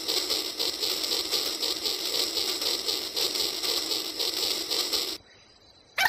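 Battery-powered toy trains running on plastic track: a dense, even whirring rattle of small gear motors and wheels on the track joints. It cuts off suddenly about five seconds in.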